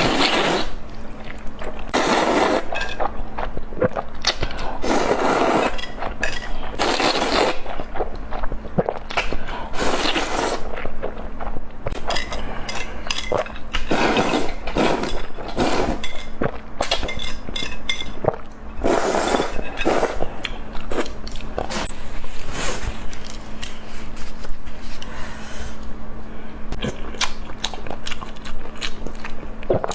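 Close-miked eating: a string of irregular crunchy bites, chewing and scraping sounds, with a faint steady low hum underneath.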